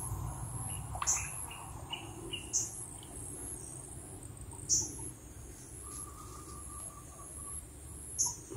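Birds giving short chirping calls every couple of seconds over a steady high-pitched insect drone.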